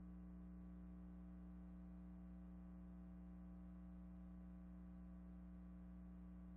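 Near silence with a faint, steady electrical hum made of several unchanging tones.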